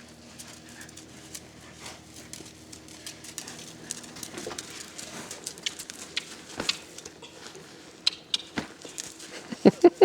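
A horse's hooves at a medium walk in a dressage arena: soft, irregular hoof clicks that grow more distinct in the second half. A few louder, short pitched sounds come near the end.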